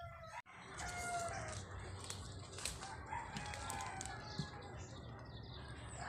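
A rooster crowing faintly, once about a second in and again just past three seconds, over steady background noise with a few light clicks.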